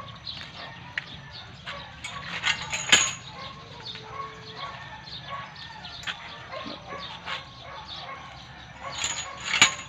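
Backyard farm ambience: chickens clucking and birds calling in short scattered chirps, with a few sharp knocks from the handheld phone being carried and handled. The loudest knocks come about three seconds in and near the end.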